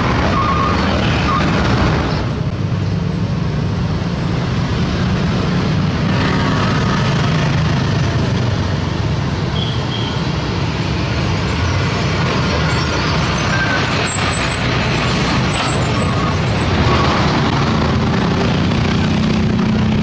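Heavy trucks' diesel engines running as they drive past, a steady low rumble mixed with road traffic noise.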